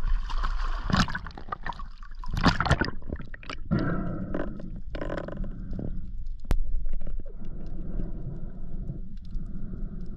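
A diver going over the side of a small aluminium boat into the sea, with splashes in the first few seconds. Then the muffled gurgling and steady low rumble of water heard with the camera underwater.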